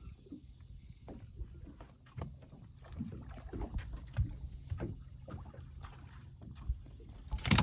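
Irregular light knocks and bumps in a fishing boat over a faint steady low hum, with a louder burst of noise near the end.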